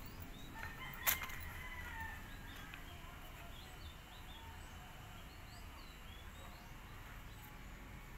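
Faint outdoor ambience with distant birds: a longer drawn-out call early on, then a scatter of small high chirps. A single sharp click about a second in.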